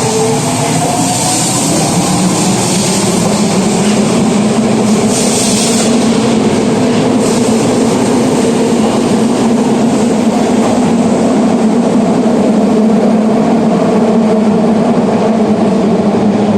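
Osaka Metro 22 series subway train running along the platform, a loud, steady rumble of wheels and traction motors with some rail clatter.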